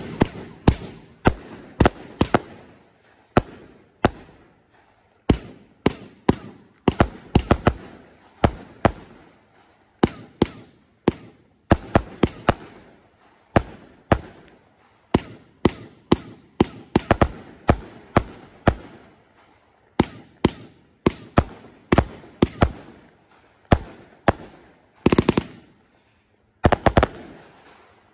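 Consumer fireworks cake firing its shots: sharp launch and break reports one after another, often in quick pairs or clusters, with two longer, denser runs of reports near the end.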